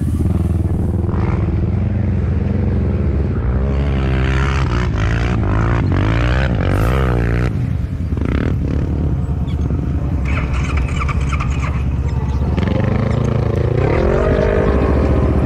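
Quad bike engine running hard off-road, its pitch rising and falling as the throttle is worked, with revving swells about four to seven seconds in and again near the end.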